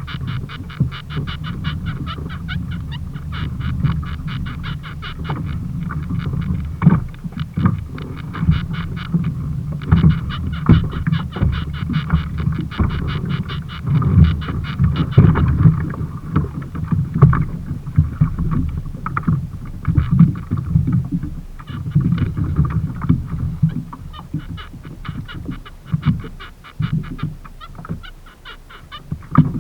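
Low rumbling of water and wind against a kayak's hull, with frequent knocks, and a fast, even clicking over much of it that fades in the second half.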